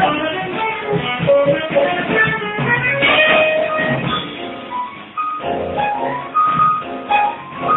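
Live jazz group playing, with drum kit, bass guitar and upright piano.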